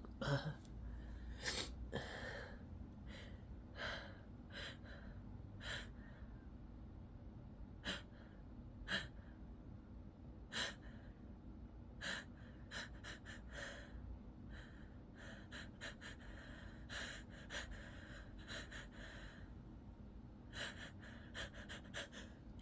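A person's sneeze buildup: repeated short, sharp gasping intakes of breath and sniffs through a nose made itchy by pepper, spread irregularly over a quiet room, with no full sneeze yet.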